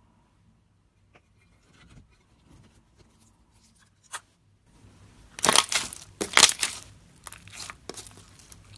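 Slime being squeezed and pressed by hand, crackling and squishing: faint ticks at first, a sharp click about four seconds in, then a run of loud crackling squishes past the middle, followed by a few smaller ones.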